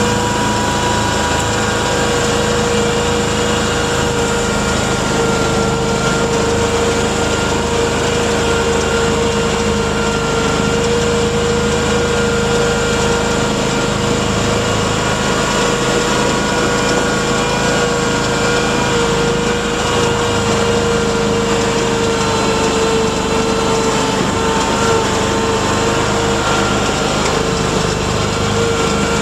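Mudd-Ox 8x8 amphibious ATV's engine running at a steady, fairly even speed under load, with a steady whine over it, heard from the vehicle's back seat.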